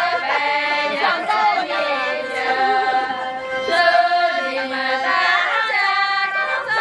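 Several women's voices singing a Miao toasting song together, holding long drawn-out notes.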